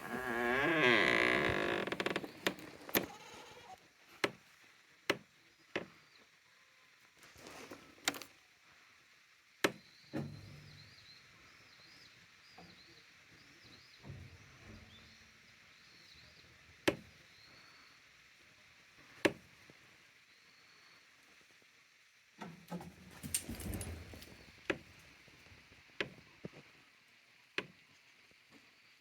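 Goats in their hut: a loud, wavering bleat of about two seconds at the start, then scattered sharp knocks and a cluster of thuds near the end, from hooves and bodies against the wooden boards.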